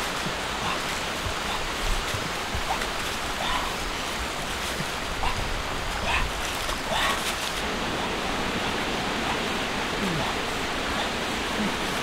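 Steady rushing noise of flowing water, with a scattering of faint short calls over it.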